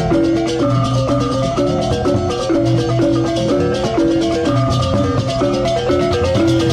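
Balinese gamelan music: bronze mallet instruments play a repeating melody of short stepped notes over drums, with fast, steady clashing on top.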